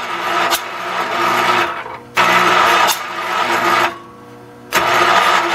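Kohler K321 14 hp single-cylinder engine being cranked and coaxed to start: three loud bursts of a second or two each, broken by short pauses.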